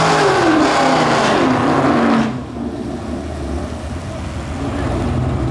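Car engines at a drag strip. A loud engine note falls in pitch for about two seconds, then gives way abruptly to a quieter, steady low idle.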